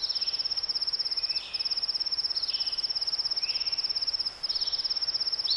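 A cricket trilling steadily, a high rapid pulsing that breaks off briefly twice, with a few faint short bird chirps in the background.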